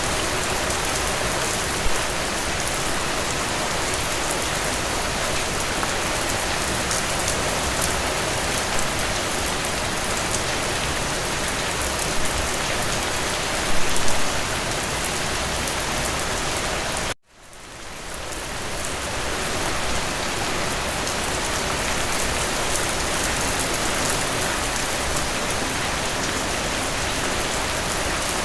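Steady rain falling in a dense patter, with a few slightly louder drops here and there. About two-thirds of the way through it cuts out abruptly and fades back in over a second or two.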